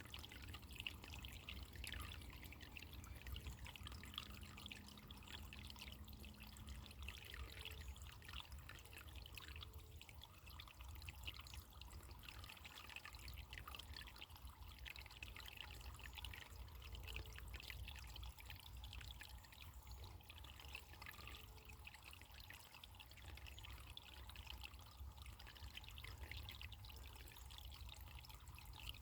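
Faint, steady trickle and splash of running water in a small stream.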